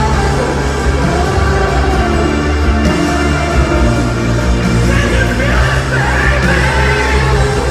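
Rock band playing live at full volume, with drums, bass and electric guitars, heard from among an arena crowd.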